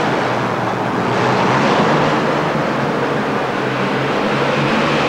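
Two Allison aircraft engines in a modified pulling tractor running flat out under load as it drags the sled, a loud steady roar that holds without a break.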